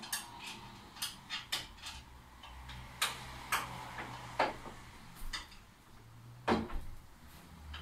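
Irregular metallic clicks and knocks as a bed leg is fitted to a wall-bed frame and a bolt is put through it, the sharpest knocks about three seconds in and again near the end.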